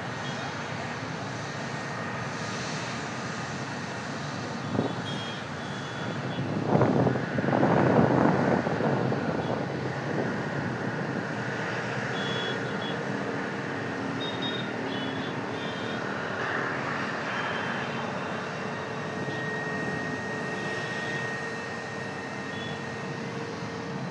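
An Airbus A320neo taxiing, its CFM LEAP-1A turbofans at low thrust: a steady engine rush. A louder rush swells for a couple of seconds about seven seconds in, and a thin steady whine comes in near the end.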